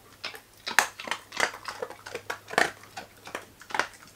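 A dog crunching and chewing hard, crunchy dog treats, a quick run of irregular crisp crunches.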